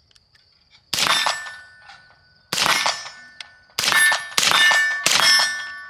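Five suppressed 5.56 rifle shots from an 18-inch AR-15 upper through an Aero Precision Lahar 30-K suppressor, fired at uneven intervals with the last three in quick succession. Each shot has a metallic ring that fades after it.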